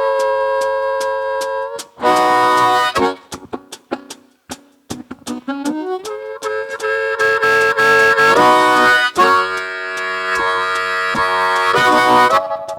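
Solo blues harmonica playing held, chord-like notes, then a choppy run of short notes and a rising bend into a loud sustained passage. Under it runs a steady ticking beat of about three clicks a second.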